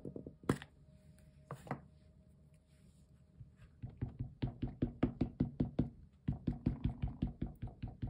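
Memento ink pad being tapped quickly and repeatedly onto an umbrella stamp on a clear acrylic block to ink it. The short knocks come about five a second, starting about four seconds in, with a brief break a little after six seconds. Two sharp clicks come in the first two seconds.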